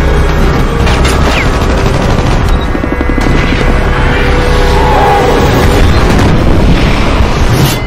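Action-movie soundtrack mix: booming blasts and rapid gunfire over dramatic music, with an explosion near the end.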